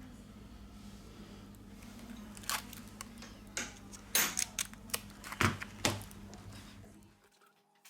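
Small sharp clicks and taps of phone parts and hand tools being handled during reassembly, about six of them in a few seconds, over a steady low hum that cuts off near the end.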